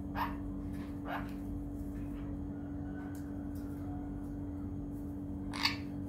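Pet parrot giving three short, sharp squawks; the last, near the end, is the loudest.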